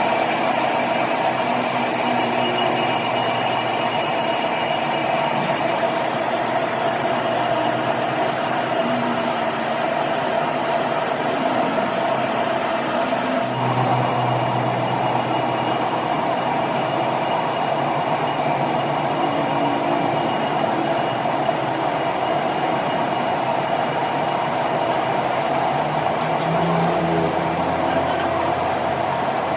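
A machine running steadily, an even, continuous drone with no breaks.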